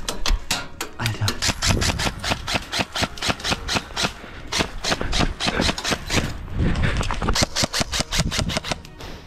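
Electric airsoft rifle firing a rapid string of shots, about seven sharp clicks a second, with a brief break about six seconds in.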